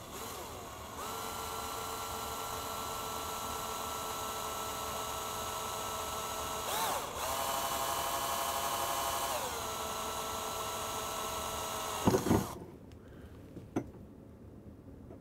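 Cordless drill with a twist bit drilling up through an aluminum L-bracket. The motor runs with a steady whine for about eleven seconds, its pitch shifting briefly partway through, then stops with a couple of knocks.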